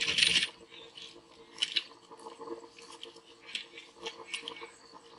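Plastic RV sewer hose and portable waste tote tank fittings being handled: a louder rustle at the very start, then scattered short rustles and clicks.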